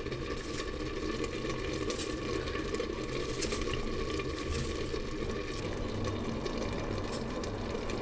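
Saag (mustard greens) simmering in a partly covered steel pot on the hob, a steady bubbling, with light clicks of a knife against a plate as a tomato is cut.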